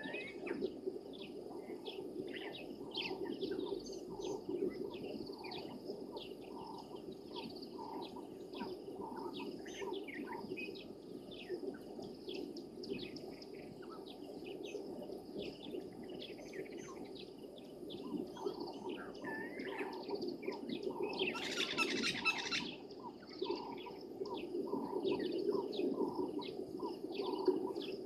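Dawn chorus of wild birds at a waterhole: many short chirps and calls overlapping over a steady low background noise, with a louder burst of rapid calls about three quarters of the way through.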